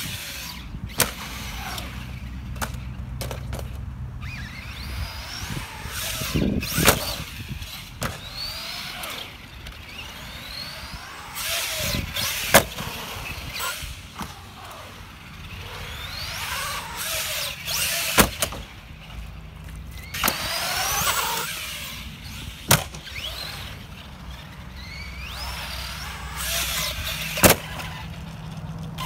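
Arrma Granite 4x4 brushless RC monster truck driving hard: its electric motor whines up and down in pitch as it speeds up and slows, with several sharp knocks as it lands jumps on the concrete.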